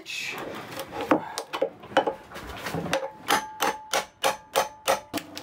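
Knife blade jabbed repeatedly into the sealant joint between a stainless steel sink rim and a laminate benchtop, cutting the old sink free. Sharp metal clicks, scattered at first, then a steady run of about three a second in the second half, with a faint ring from the steel sink.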